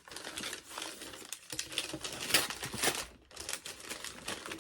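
Packaging crinkling and rustling as it is handled in quick, irregular crackles, with a short pause about three seconds in.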